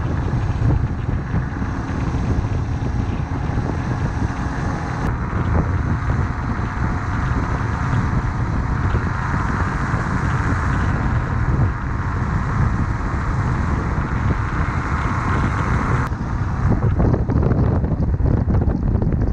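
Motorcycle riding on the road, its low rumble under steady wind noise on the microphone. The sound shifts abruptly about sixteen seconds in.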